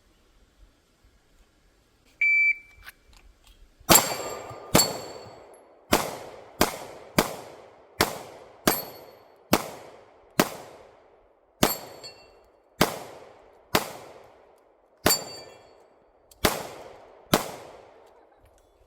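Shot timer beeps once, then a string of about fifteen gunshots at uneven spacing over some thirteen seconds. Several shots are followed by the ring of a struck steel plate.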